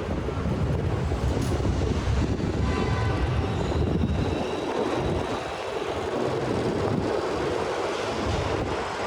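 City street traffic: heavy vehicles rumbling past in a steady low drone. A brief, faint pitched whine rises out of it about three seconds in.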